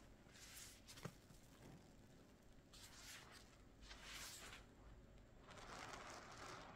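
Faint wet squishing and rustling of a sponge worked into soapy lather, in soft swells, with one short click about a second in.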